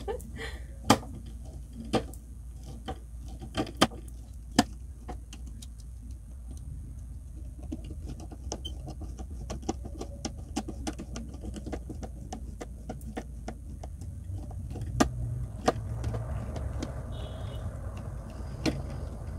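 Hand screwdriver driving a screw into a flat-pack cubby panel: irregular sharp clicks and ticks of the tool and screw, over a low steady hum.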